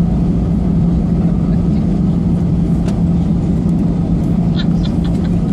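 Steady hum and rumble of an airliner's engines and cabin, heard inside the passenger cabin as the plane rolls on the ground after landing, with one constant low drone under it.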